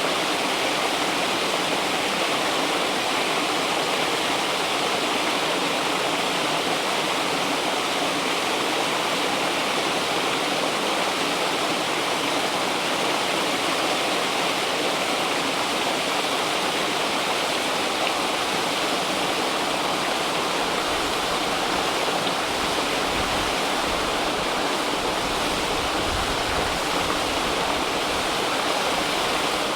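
River water rushing and splashing steadily over rocks. A low rumble comes and goes underneath about two-thirds of the way through.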